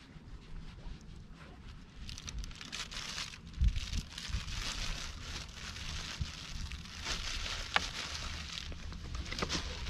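Crackling, rustling noise of wind on the microphone and water lapping against an aluminium bass boat's hull. It grows louder about two seconds in, with a few dull thumps and sharp knocks.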